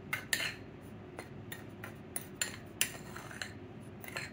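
Metal spoon stirring dry cornmeal breading in a ceramic bowl: irregular light clinks and scrapes of the spoon against the bowl.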